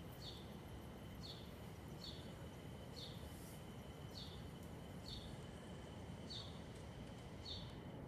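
An animal's short high chirp, dropping slightly in pitch and repeated about once a second, over a faint steady high whine and low background rumble.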